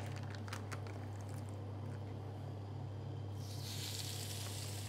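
Raw chicken breast sizzling as it is laid on a hot ridged char-grill pan, an even hiss that starts about three and a half seconds in. A few light clicks of handling come first, over a low steady hum.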